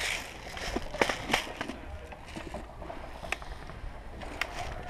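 Footsteps crunching on wood-chip mulch and the knocks of carried gear: a few scattered, irregular crunches and clicks.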